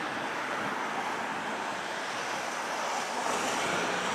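Steady rushing drone of a freight train led by GE ET44AH diesel-electric locomotives, still far off and approaching, growing a little louder near the end.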